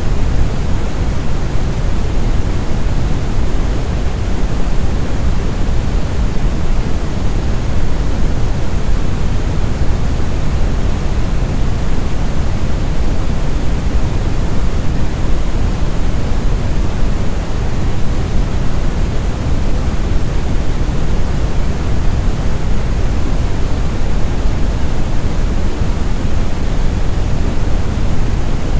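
Brown noise: a steady, deep, smooth rumbling hiss, strongest in the bass and thinning toward the treble, unchanging throughout.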